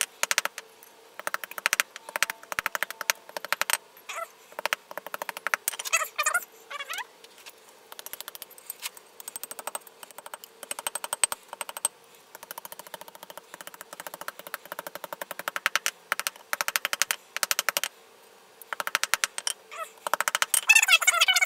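Hand hammer tapping thin wrought iron bars on a steel anvil in quick runs of light blows with short pauses: the bars are being straightened cold.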